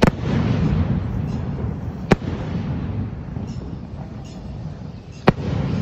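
Aerial fireworks going off overhead: three sharp bangs, one at the start, one about two seconds in and one about five seconds in, with a low rumbling between them.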